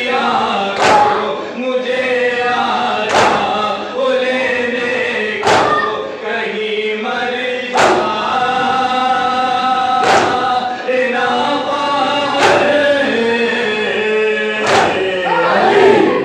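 Group of men chanting a nauha (Shia lament) together, with a loud unison chest-beating strike of matam about every two and a quarter seconds.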